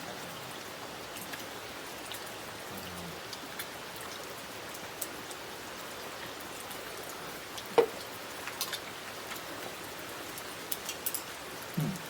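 Steady rain falling, with scattered drops tapping on surfaces. There is one sharp knock about eight seconds in.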